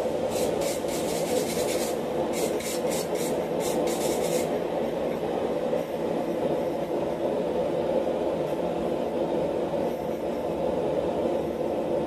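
Hand wire brush scrubbing forge scale off a freshly forged steel bar in quick back-and-forth strokes, about five a second, in two spells that stop about four seconds in. A steady low roar sits underneath.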